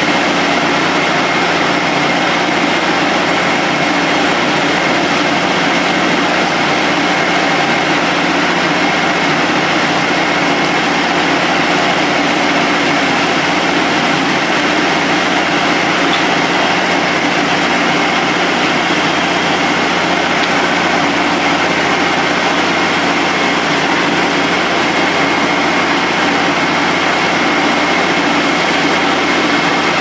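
Frick 00 circular sawmill running steadily, its power unit and spinning head saw making an even mechanical sound with no clear change.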